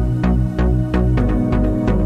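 Background music with a steady beat, about three beats a second, over sustained low notes.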